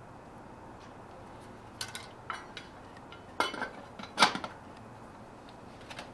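Metal lid of a small cook pot being set back on, clinking against the pot: a few light metal clinks, the loudest about four seconds in.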